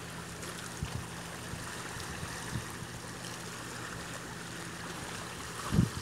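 Small waves lapping and trickling among the rocks and pebbles at the water's edge, a steady gentle wash. A gust of wind buffets the microphone near the end.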